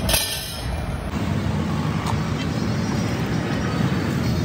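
Street traffic noise: a steady rumble of passing vehicles, with a short burst of noise at the very start.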